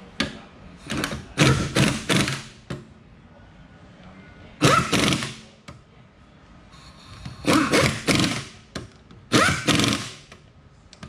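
Cordless impact wrench running wheel nuts onto a car wheel in several short bursts of about a second each, with quiet pauses between.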